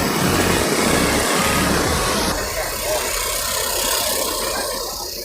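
Motor vehicle engine and road noise, loud at first and dropping off sharply about two seconds in.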